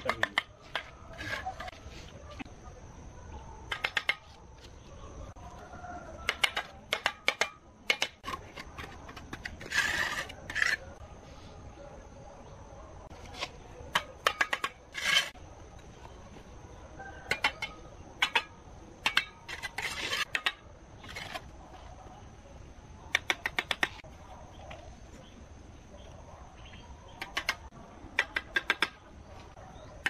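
Bricklaying: a steel trowel tapping and scraping on red bricks and wet mortar, and bricks clinking as they are set in place, in short scattered runs of sharp taps.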